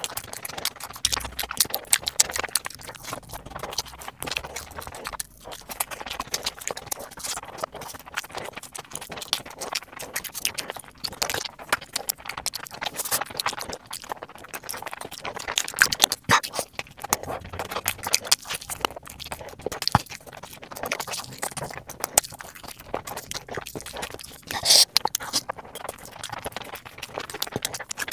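Close-miked chewing and mouth smacking of someone eating sauced fried chicken and stir-fried noodles by hand: a dense, uneven run of wet smacks and clicks, with a louder burst about three-quarters of the way through.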